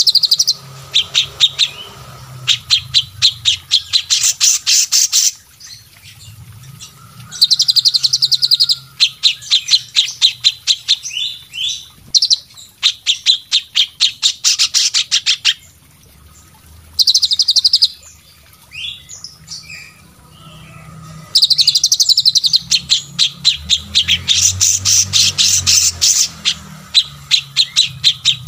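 Mixed songbird calls from a combined recording of cililin, cucak cungkok, kapas tembak and cucak jenggot: bouts of rapid, sharp, high repeated notes lasting a few seconds each, broken by short pauses.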